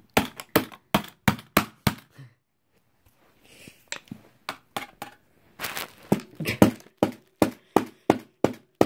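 Repeated hard blows on a hard object, about three sharp knocks a second, pausing for about two seconds and then resuming; the object is being broken until it cracks.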